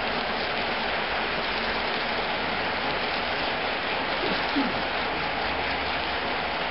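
A long HO-scale model freight train rolling past on the track: the wheels of the boxcars on the rails make a steady, even running noise.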